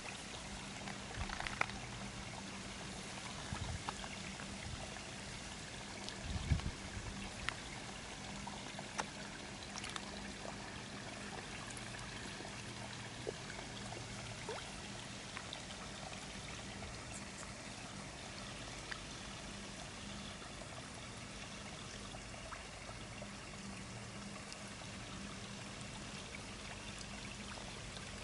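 Water pouring and trickling steadily into a koi pond, with koi splashing and sucking at the surface now and then, mostly in the first ten seconds.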